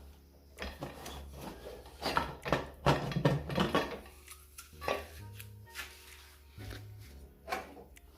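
Metal cookware clattering and scraping, loudest about two to four seconds in, with a few single knocks later, over steady background music.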